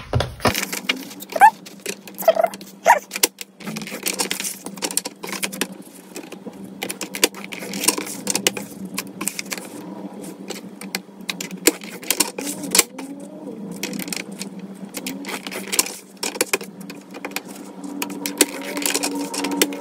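Paper trimmer's scoring blade drawn along its rail, scoring fold lines into white cardstock, with the card sheet shifted and slid between strokes: repeated short scraping strokes and sharp clicks.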